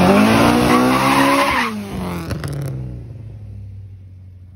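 A tuned car pulling away hard with its tyres spinning and skidding: loud tyre screech over a revving engine for about two seconds, then the engine note falls and fades as the car moves off.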